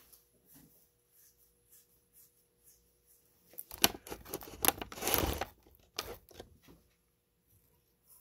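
Rustling, scraping and clicking of hands handling fly-tying materials and tools at the vise, faint at first, then a louder burst of scraping and clicks about four to five seconds in.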